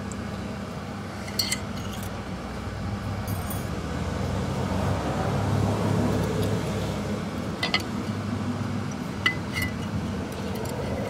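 Light metallic clinks and clicks, a handful scattered through, as a clutch release bearing and its spring clip are fitted by hand onto a manual transmission's input shaft and release fork, over a steady low hum.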